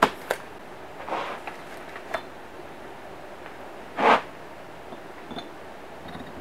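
Workshop handling noise as a machined aluminium crankcase half is set down on fibreboard blocks with gloved hands: a few sharp knocks and clunks, then one louder, short scuffing thud about four seconds in, over a steady faint hiss.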